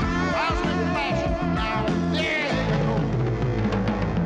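Rock music, with wavering, bending high notes over a steady low bass.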